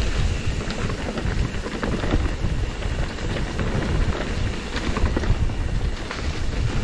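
Mountain bike rolling down a dirt trail: heavy wind rumble on the microphone over tyre hiss, with a steady scatter of clicks and rattles from the bike over roots and rocks.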